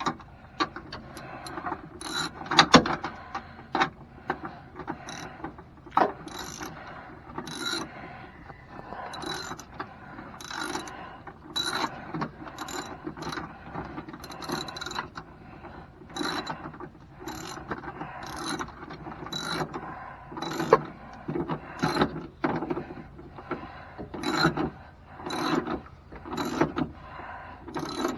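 Hand ratchet wrench turning a step-rail mounting bolt, clicking in regular strokes about once a second.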